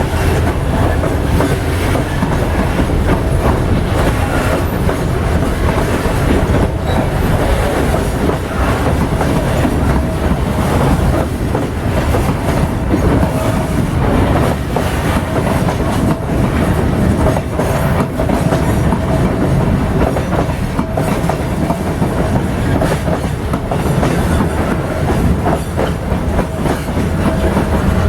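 Loaded freight train rolling past, its wagon wheels clacking steadily over the rail joints with a heavy rumble. A thin steady squeal comes and goes, mostly in the second half.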